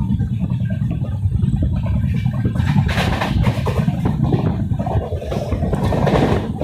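Train wheels running over the rails: a steady low rumble with fast clatter, and a harsher, brighter surge of rail noise about three seconds in and again near the end.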